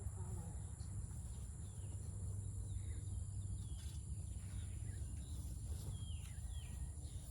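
Insects trilling steadily at a high pitch, with several short falling bird chirps, over a low steady rumble.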